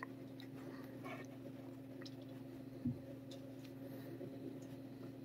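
Mostly quiet with a steady low hum, faint rustling and ticking as a leather gauntlet strokes a cat's fur, and one soft thump about three seconds in.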